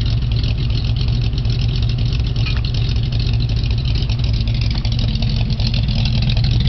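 Oldsmobile 350 Rocket V8 idling steadily, heard through its exhaust.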